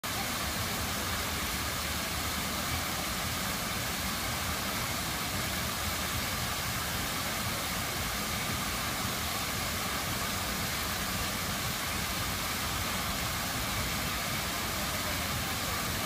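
Water from a tiered fountain cascading over its bowl and stepped tiers into the basin, a steady rushing splash that holds even throughout.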